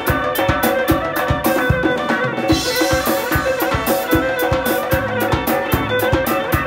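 Live Central Asian band music: an electric violin plays a melody over a fast, steady beat from a doira frame drum, a drum kit and a large two-headed stick-beaten drum. The high drum strikes drop out briefly about two and a half seconds in, then pick up again.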